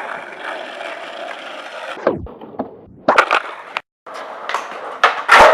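Skateboard wheels rolling on hard ground. A sound drops sharply in pitch about two seconds in, then come sharp wooden clacks and clatter of the board hitting the ground, loudest near the end.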